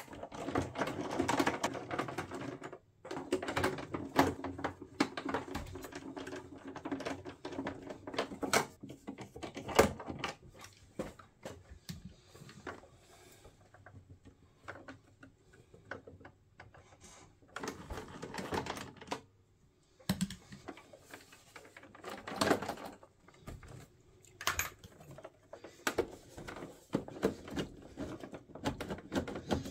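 The plastic cabinet of a Sharp GF-9494 boombox being handled and turned over by hand: dense runs of clicks, knocks and rattles, coming in bursts with quieter stretches between them.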